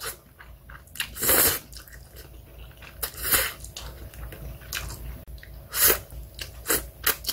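A person eating Jjapaguetti instant black-bean noodles with chopsticks: noodles slurped in several short bursts, with chewing between.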